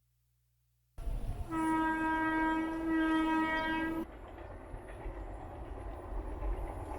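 A train horn blows one steady note for about two and a half seconds over a low rumbling noise, then cuts off abruptly while the rumble carries on.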